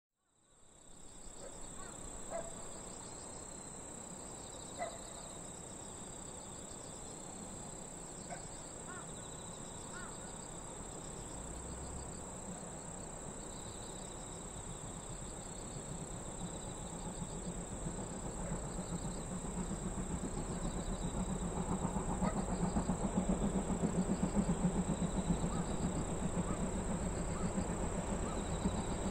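C57 steam locomotive working up a grade in the distance: a low rumble that grows steadily louder from about 18 seconds in as it approaches. Behind it, steady high-pitched insect song and a few short bird calls in the first ten seconds.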